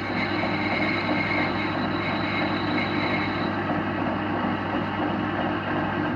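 Metalworking lathe running steadily, a continuous motor and gear hum with a whir on top.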